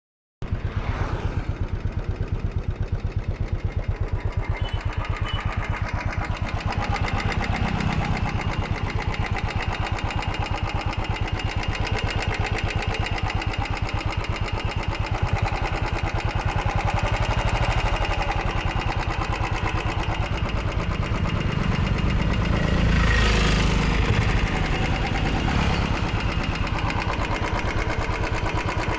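Royal Enfield Classic 350's single-cylinder engine running with a steady, rapid pulse, swelling briefly about three quarters of the way through. The uploader calls it a bad engine sound.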